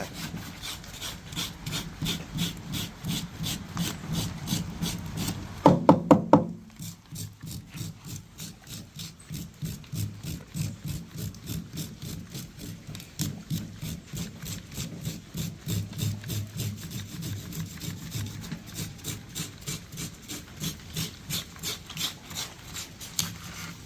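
A knife scraping the scales off a large fish in quick, regular strokes. A brief loud pitched call cuts in about six seconds in.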